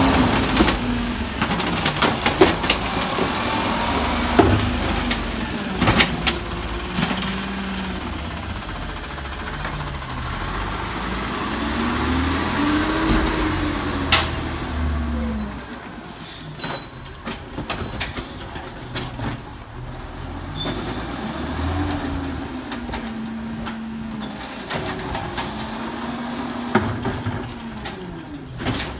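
Automated side-loader garbage truck's natural-gas engine revving up and falling back several times as it drives the hydraulic lift arm, with sharp knocks of the cart being lifted and emptied in the first half.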